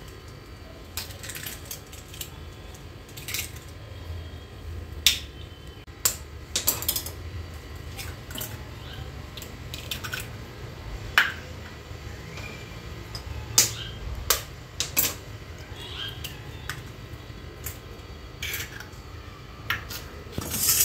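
Eggs being cracked by hand over a stainless steel bowl: irregular sharp taps and clicks of eggshell against the metal bowl and of shells being broken open.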